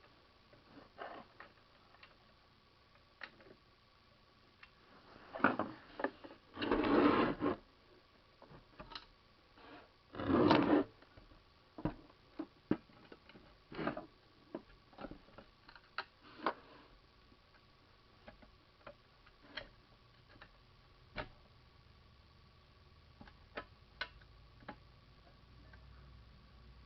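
Hand tools and small metal engine parts clicking and clinking during reassembly of a Honda G100 engine: scattered sharp clicks, with two louder rattling scrapes, one about six to seven seconds in and one about ten seconds in. A faint steady high hum runs underneath.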